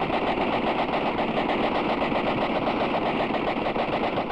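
Sustained automatic gunfire: a long, unbroken burst with a fast, even rhythm of shots, stopping just after the end.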